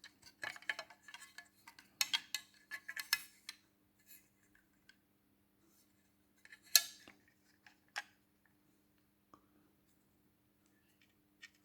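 Small hard parts and a tool being handled up close while a hinge pin brace is screwed onto an RC car chassis: rapid light clicks and taps in two bursts in the first few seconds, then a single sharp click and a smaller one a second later. A faint steady hum sits underneath.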